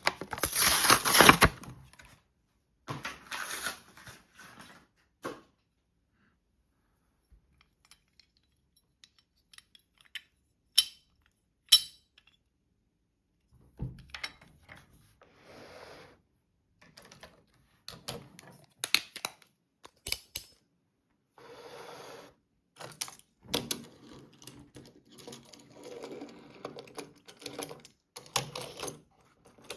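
Hands handling a small plastic toy and its packaging: a burst of crinkling and rustling in the first two seconds, then scattered clicks, taps and small rattles with pauses between them.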